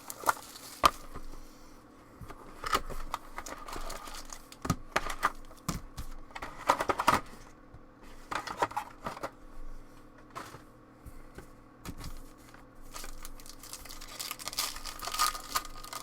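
Plastic wrapping on a box of trading cards and its card packs being torn open and crinkled by hand, in irregular bursts of crackling with sharp clicks.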